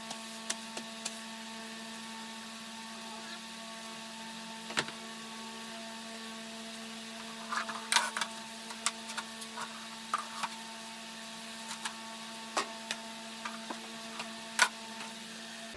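A steady electrical hum with a few pitched tones in it, with scattered sharp knocks and clicks of objects being handled. A quick run of knocks comes about halfway through, and the loudest single knock comes near the end.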